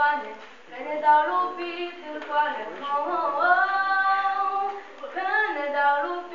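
A girl singing solo without accompaniment. About three seconds in she slides up into a long held note.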